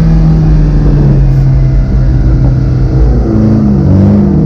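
Car engine revving hard, held at a steady high pitch, then rising and falling a few times near the end.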